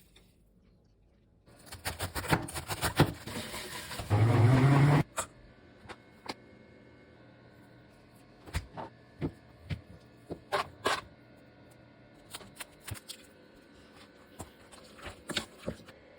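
Kitchen preparation sounds: a run of clattering and knocks, then a loud low hum about four seconds in that lasts about a second and cuts off suddenly, followed by scattered sharp knocks of utensils.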